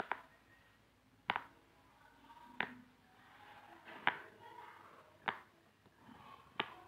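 Silicone pop-it fidget toy, its bubbles pressed in one by one with the fingers: a sharp little pop about every second and a quarter, six or so in all.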